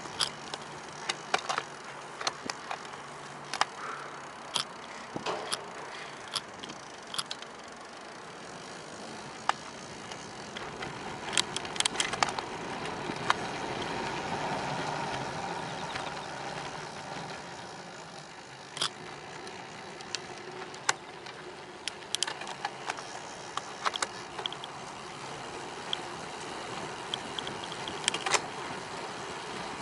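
A bicycle rolling along a path: steady tyre and wind noise with many irregular sharp clicks and rattles, the noise swelling for a few seconds around the middle.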